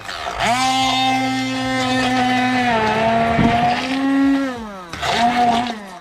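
Bella immersion blender motor blending a marinade in a glass measuring cup. It switches on about half a second in and runs at a steady whine for about four seconds, the pitch sagging slightly partway as the blade meets the mix, then winds down and is pulsed on again just before the end.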